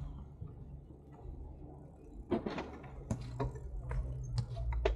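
A bicycle being ridden, rattling and clicking over a low steady rumble. The clicks and knocks come thicker in the second half.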